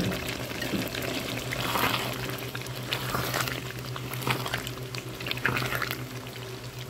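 Milk bubbling and simmering around pieces of beef and masala in a non-stick pan. A spatula scrapes and stirs through the curry several times.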